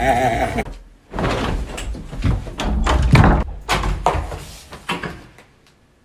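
A man laughing for a moment, then a rapid, irregular run of loud bangs and thumps from wardrobe doors being slammed and banged, stopping about a second before the end.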